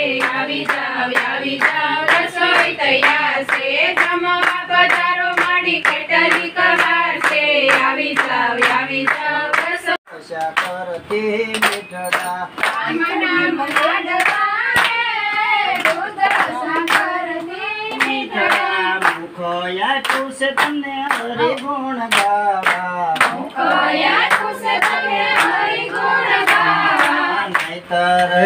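A group of women and children singing a devotional song together, clapping their hands in a steady rhythm. The sound breaks off briefly about ten seconds in.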